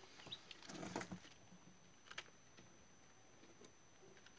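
Near silence: a few faint, scattered ticks of day-old chicks pecking at feed and litter, over a faint steady high whine.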